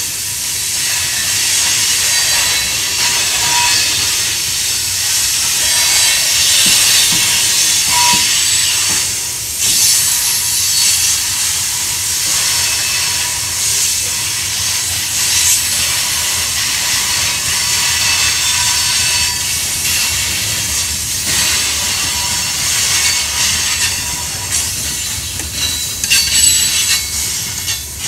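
Freight cars (tank cars and covered hoppers) rolling past on a curve, their steel wheels hissing and squealing against the rails over a low rumble. The sound grows rougher near the end.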